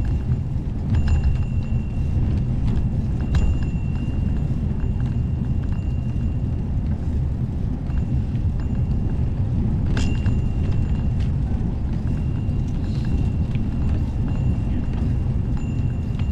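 Wind rumbling and buffeting on the microphone while riding a bike, with a faint high whine that comes and goes and a single sharp click about ten seconds in.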